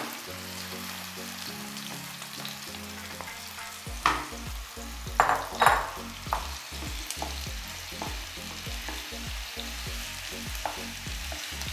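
Mashed boiled potato sizzling in hot oil with garlic-chilli paste in a nonstick pan. From about four seconds in, a wooden spatula scrapes and presses it against the pan in a run of short strokes.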